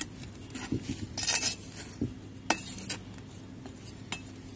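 Metal hand trowel digging into potting soil to loosen it: a few separate strokes, scraping and clinking as the blade hits the pot, with one longer scrape about a second in.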